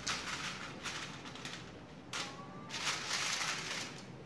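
Aluminium foil rustling and crinkling as it is handled, in two spells: one in the first second or so and a longer one from about two seconds in.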